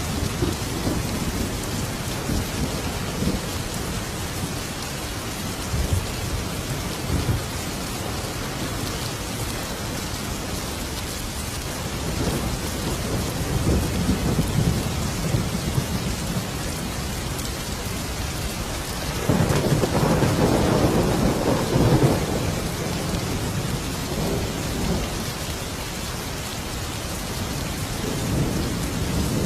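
Thunderstorm: steady heavy rain with rolling thunder rumbling underneath, swelling into a louder roll of thunder about twenty seconds in.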